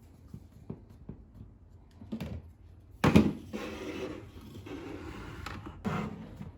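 Objects being handled: a few light clicks, a sharp knock about three seconds in followed by a stretch of rustling or scraping, and another knock near the end.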